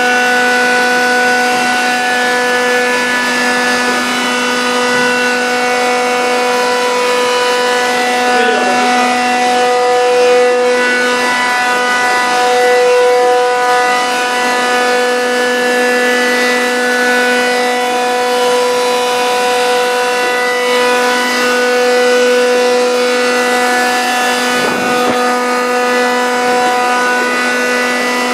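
Reverse osmosis desalination unit running: a loud, steady pitched machine hum.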